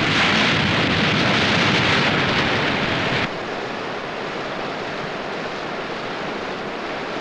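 Steady rushing of the Toutle River floodwater, loud and hissing for about three seconds, then cutting abruptly to a quieter, duller rush.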